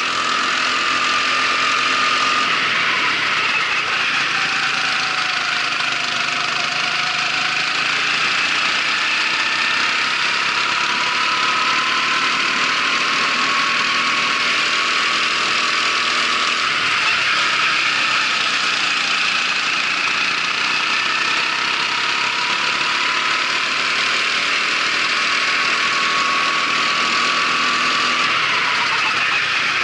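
Racing kart engine running hard through laps, heard from the kart. Its pitch drops a few seconds in, climbs steadily along the straight, dips briefly midway, climbs again and falls near the end as the driver lifts for corners.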